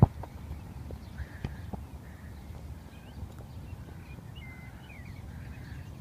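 Wind rumbling on the microphone on an open grass field, with faint bird chirps scattered through it. There is a sharp knock right at the start and a few softer knocks after it.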